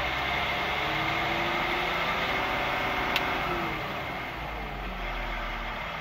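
Caterpillar C13 diesel engine of a concrete mixer truck, heard from inside the cab, revving up as the RPM switch is held, holding at raised revs, then dropping back toward idle after a sharp click about three seconds in.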